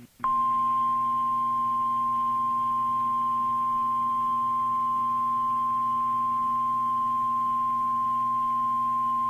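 NOAA Weather Radio's 1050 Hz warning alarm tone: one steady high pitch that starts a moment in and holds unchanged, the signal that an emergency alert, here a tornado watch, is about to be read. A low steady hum runs underneath.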